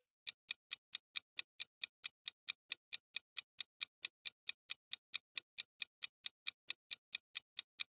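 Countdown-timer ticking sound effect: a steady run of short, even clock-like ticks, about four to five a second, marking the time left to answer.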